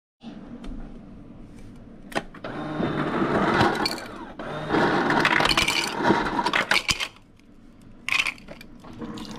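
Refrigerator door ice dispenser dropping cubed ice into a plastic cup, the cubes clattering in. It runs in two bouts, starting about two seconds in and stopping about seven seconds in.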